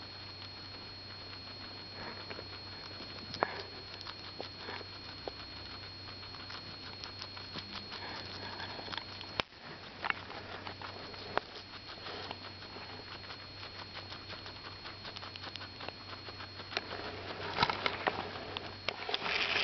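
Guinea pigs chewing crisp endive leaves: a run of small crunches and nibbling clicks. Near the end the crackling and knocks get louder as one guinea pig sniffs right up against the camera.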